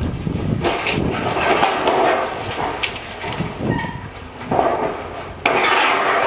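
Building demolition: irregular crunching, cracking and clattering of broken masonry and timber, with scattered knocks. The sound changes abruptly near the end.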